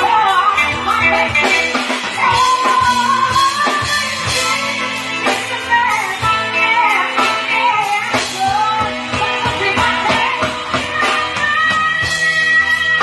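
A woman singing a pop-rock song with a live band of drum kit and electric guitar.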